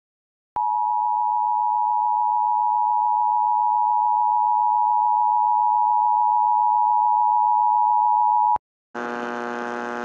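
Emergency Alert System two-tone attention signal, a steady high tone held for about eight seconds and then cut off abruptly. Near the end, after a short break, a steady electrical buzzing hum begins.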